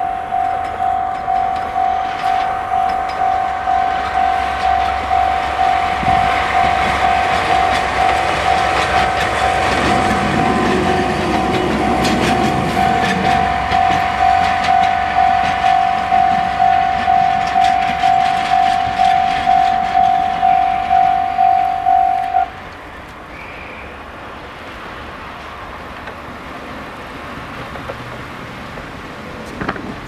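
A Japanese level-crossing warning bell clangs in a steady rhythm, about one and a half strikes a second, and cuts off suddenly about three-quarters of the way through. Under it, a JR Hokkaido DE15 diesel Russell snowplow train rumbles past over the rails, loudest about a third of the way in.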